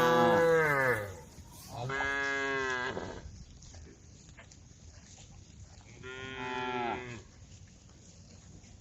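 Cows mooing: three long moos. The first and loudest is already sounding at the start and falls in pitch as it ends, a second comes about two seconds in, and a third about six seconds in.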